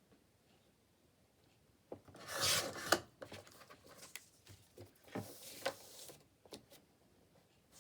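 Paper being slid and scraped across a craft table and a large paper cutter as a journal page is trimmed. One loud scraping stroke about two seconds in ends in a sharp click, then comes softer rubbing with a few clicks.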